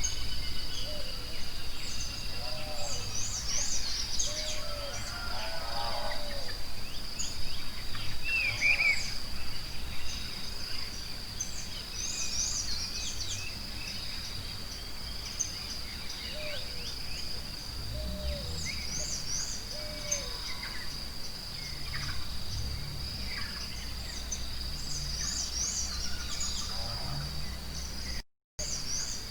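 Forest ambience: many birds chirping and whistling short notes over a steady high insect drone, with a low rumble underneath. The sound cuts out for a moment near the end.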